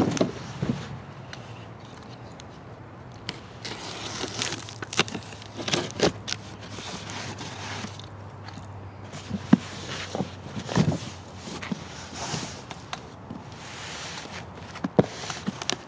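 Large cardboard shipping box being handled, tilted and turned on a table: scattered scrapes, knocks and crinkles of cardboard.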